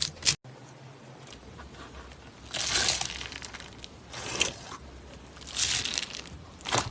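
Slime being squeezed and pressed by hand in about four noisy bursts. The bursts start about two and a half seconds in, after a sudden cut and a quiet stretch.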